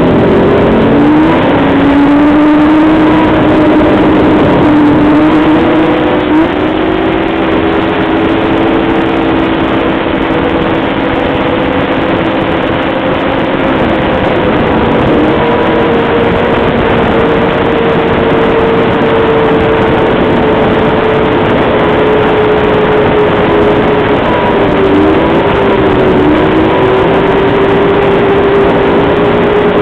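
Snowmobile engine running at trail speed, heard from on board the sled. Its pitch climbs in the first couple of seconds, then holds fairly steady with small shifts, under a heavy rushing noise.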